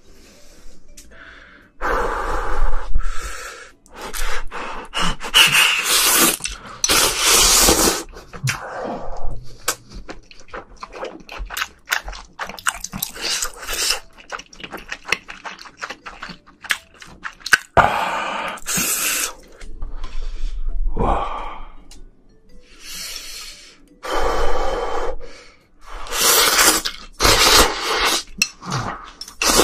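Close-miked slurping of noodles, several long noisy slurps with quieter chewing in between.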